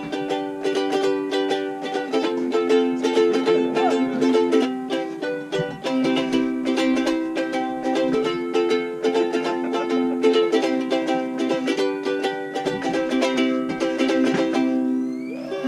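Ukulele strummed in a steady rhythm, moving through a series of chords.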